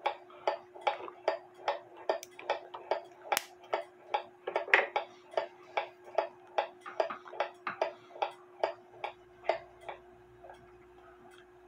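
Emil Schmeckenbecher 30-hour novelty clock movement ticking, about three ticks a second. The ticks weaken and stop about ten seconds in as the clock runs down at the same spot, which the repairer takes as the sign of a bent tooth on the escapement wheel. A steady low hum runs underneath.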